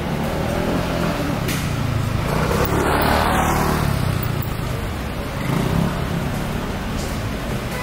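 Vehicle road noise: a steady rushing of a vehicle on the move, swelling about three seconds in, like a vehicle passing close, then easing off.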